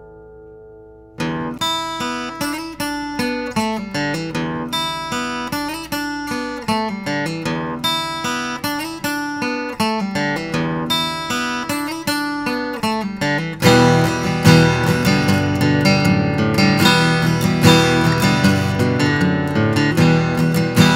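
Acoustic guitar music: a chord rings and fades, then picked notes start about a second in, and the playing turns louder and fuller, with strumming, about two-thirds of the way through.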